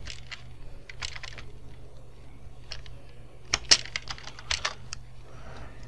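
Computer keyboard keystrokes: scattered clicks in small clusters as a command is typed into a router's command line, over a steady low hum.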